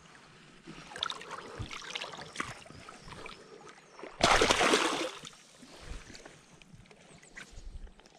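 Shallow river water splashing and sloshing as a hooked pike is held and handled at the surface, with one loud splash lasting about a second, a little over four seconds in.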